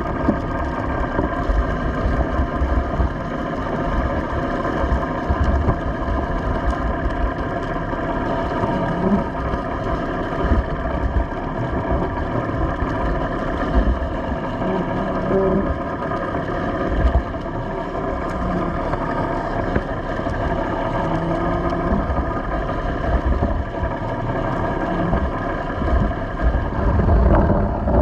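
A boat engine running steadily, a constant hum of several even tones, with irregular low rumbling underneath.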